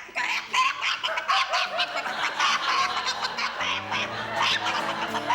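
A boy clucking and squawking like a hen, with some snickering laughter. Sustained music notes come in past the halfway point.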